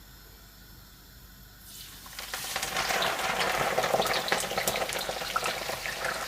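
Spring greens frying in hot oil: sizzling and crackling starts about two seconds in, builds quickly and stays loud.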